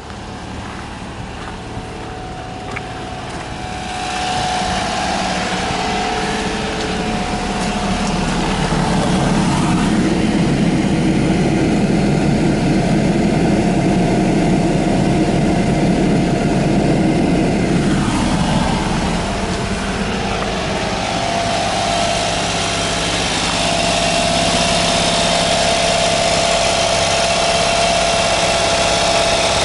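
Honda Acty HA4 kei truck's small three-cylinder engine idling steadily. It gets louder about four seconds in, with a rougher, noisier stretch in the middle.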